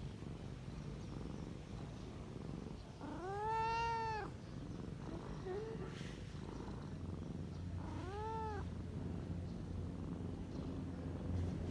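Kitten purring steadily, with two short meows rising and falling in pitch: a louder one about three seconds in and a shorter one about eight seconds in.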